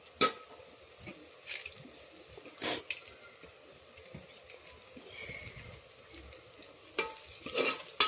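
A metal spoon stirring onions frying in oil in a pressure cooker pot. It gives a handful of separate clinks and scrapes against the pot, over a faint sizzle.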